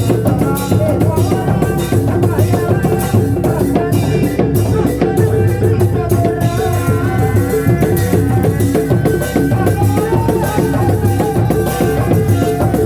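Live reak kuda lumping ensemble music: drums and percussion keeping a dense, steady rhythm under a wavering melodic line.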